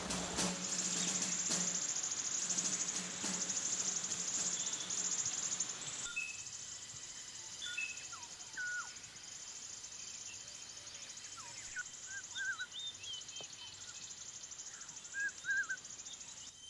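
Forest ambience: a dense, pulsing insect chorus that drops away about six seconds in, leaving a fainter insect buzz with scattered short bird chirps and whistles.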